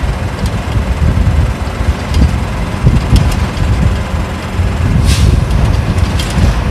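Isuzu Cubic city bus's V8 diesel engine running as the bus drives along, a deep rumble heard from inside the cabin, with small rattles and a short hiss about five seconds in.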